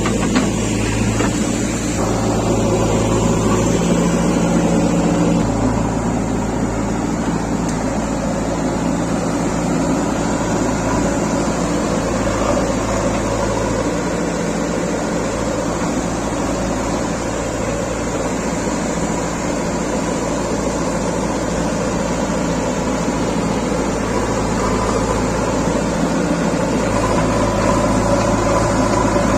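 JCB 3DX backhoe loader's diesel engine running steadily, its note shifting a few times as the load changes, with a lower-pitched stretch through the middle.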